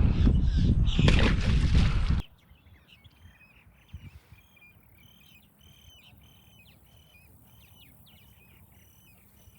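Wind buffeting the microphone for about two seconds, cut off suddenly, then faint, continuous chirping of birds, many short calls repeating.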